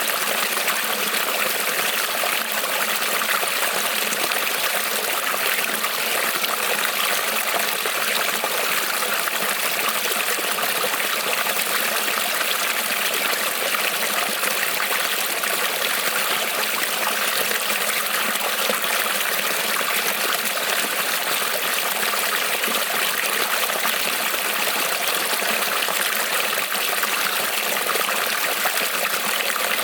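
Small creek rippling and trickling over stones, a steady even splashing with no change.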